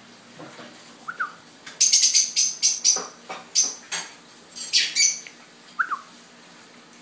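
Pet lovebird giving a rapid series of loud, shrill chirps lasting about three seconds, with a softer short squeak just before and just after.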